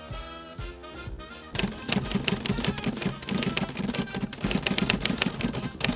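Background music, then about one and a half seconds in a typewriter sound effect begins: rapid, irregular keystroke clacks that run on over the music.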